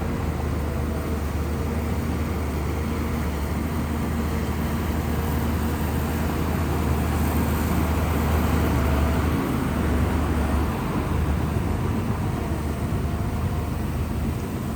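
Shantui bulldozer's diesel engine running steadily with a deep drone, a little louder for a few seconds in the middle.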